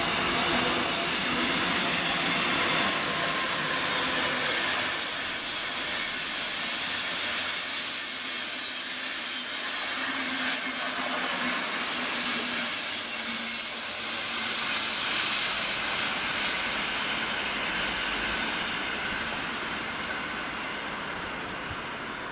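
Passenger trains of double-deck regional coaches and Intercity coaches running past on the rails, with a steady rolling rattle of wheels on track. Thin, high-pitched wheel squeal comes through in the first half. The sound fades over the last few seconds as the trains move away.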